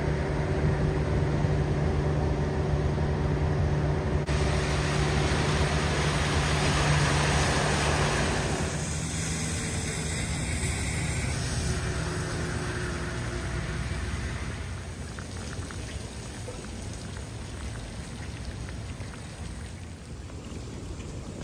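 Heavy rain falling on flooded pavement and standing water, a steady hiss of drops. For about the first nine seconds a steady low engine hum runs under the rain, then it stops. The rain alone is a little quieter in the second half.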